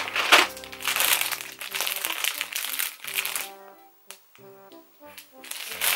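A short instrumental tune plays, with the crinkling of a clear plastic garment bag being handled over its first half.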